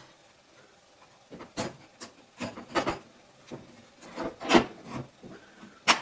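Plastic opening tool scraping and clicking against the seam of an iPod Video's case as it is pried open. Irregular short scrapes and clicks start about a second in, with the loudest a little past the middle and a sharp click near the end.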